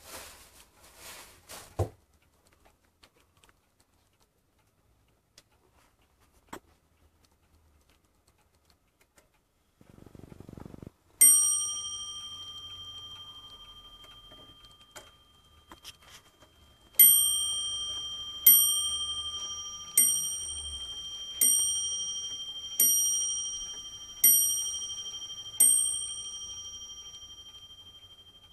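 Bell of a Dutch Zaandam-style weight-driven wall clock striking: a single ringing stroke, then about six seconds later seven strokes about a second and a half apart, each fading slowly. A brief rustle of handling comes just before the first stroke.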